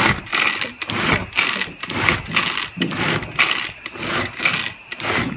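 Small hand-pulled food chopper whirring in quick repeated strokes, about three a second, as its blades chop cucumber and mint leaves inside the container.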